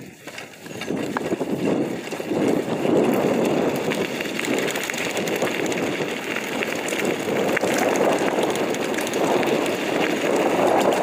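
Mountain bike riding on a dirt road: a steady rush of wind on the microphone over tyre noise on the dirt, with scattered small clicks and rattles.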